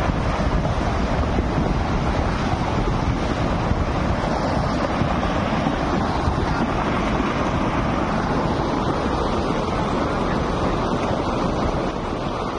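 Landslide: loose earth and rocks sliding and tumbling down a rain-soaked hillside, a continuous loud rushing rumble that eases slightly near the end.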